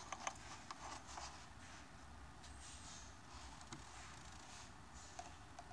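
Faint small clicks and taps of multimeter probe tips against the solar panel's tiny terminals inside an opened power bank, mostly in the first second or so and twice more later, over a faint low room hum.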